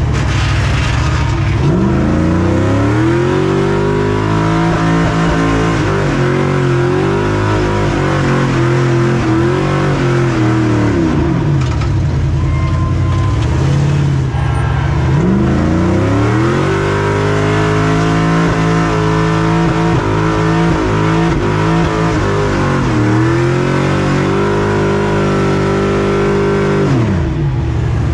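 Stadium Super Truck's V8 engine under hard throttle. The revs climb about two seconds in and stay high with small dips, drop off around eleven seconds in, then climb again at about fifteen seconds and drop away near the end.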